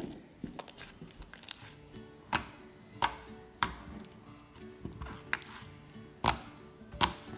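Slime being poked and squeezed by hand, giving a series of crisp pops and clicks about once a second, over soft background music.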